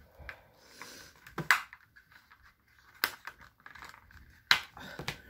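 Stiff clear plastic packaging being pried and handled by hand: three sharp plastic clicks about a second and a half apart, with faint crinkling and scraping between them.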